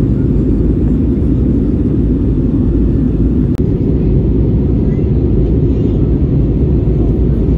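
Steady low rumble inside the cabin of an Airbus A320-200 on its descent, engine and airflow noise heard from a window seat behind the wing. A single faint click about halfway through.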